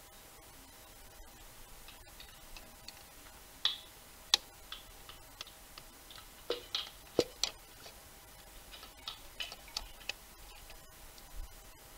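Irregular sharp clicks and clacks of a long flat screwdriver prying at plastic ignition coils and their wiring clips on an engine's coil rail, with the coils being moved aside. They come in loose clusters, with two louder snaps a few seconds in and near the middle.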